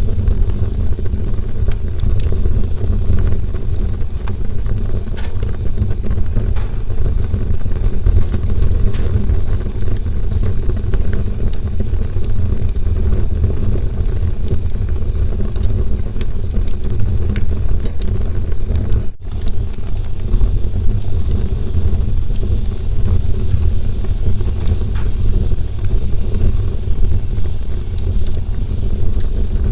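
Campfire burning: a steady low rumble from the flames with scattered sharp crackles and pops of burning wood. The sound drops out for an instant about two-thirds of the way through.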